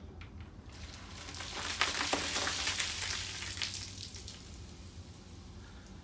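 Fanta Uva grape soda foaming up out of a plastic bottle as Mentos set off a geyser: a fizzing hiss full of small crackles that swells about a second in, is loudest over the next two seconds, then dies away.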